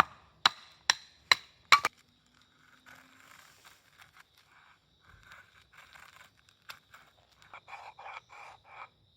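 A run of sharp knocks, about two a second, that stops about two seconds in, followed by faint scraping and rustling and a quicker series of soft taps near the end.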